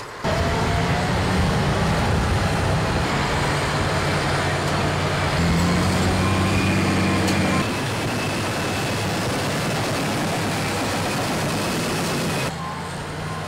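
Diesel engine of a crawler bulldozer running hard in the surf, with water sloshing around its tracks. The engine note rises a little about five seconds in, and the sound drops in level near the end.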